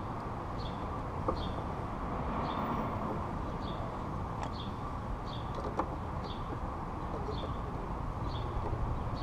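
Steady low background rumble with a bird chirping over and over, about once a second. Two light clicks come as the footpeg is fitted to its mount.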